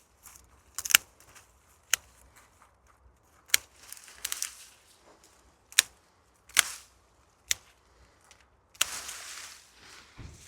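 Sharp snips of secateurs cutting back bramble stems, about five cuts one to two seconds apart, with the cut stems rustling as they are pulled away between the cuts.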